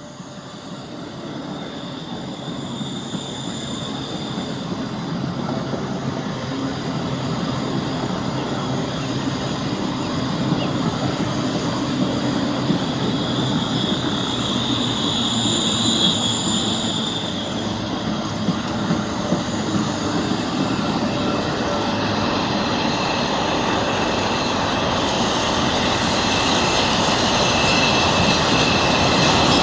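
LMS Jubilee class 4-6-0 steam locomotive 45690 and its coaches rolling in over station pointwork, a steady rumble of wheels and rail noise growing louder as it comes near. High squeals come and go, and a few sharp clicks sound from the wheels over the crossings about halfway through.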